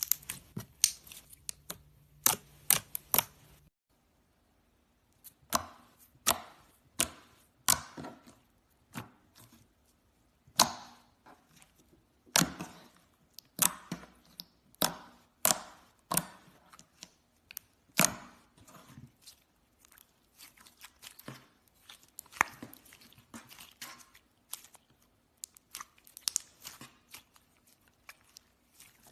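Slime being pressed, poked and stretched by hand, giving irregular sharp clicks and pops, sometimes in quick clusters, from air trapped in the slime.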